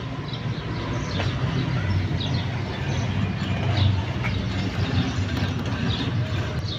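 A steady low mechanical rumble, like a vehicle engine running, with short high chirps scattered through it.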